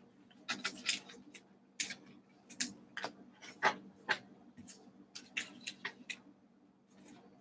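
Trading cards and pack wrappers being handled on a tabletop: a quick run of short rustles, slides and taps that stops about six seconds in.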